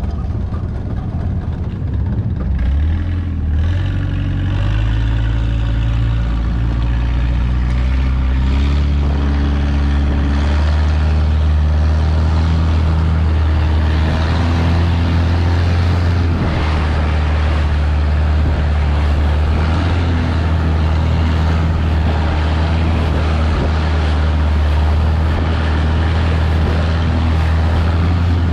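Long-tail boat engine revving up over the first several seconds, its pitch rising, then running steadily at cruising speed.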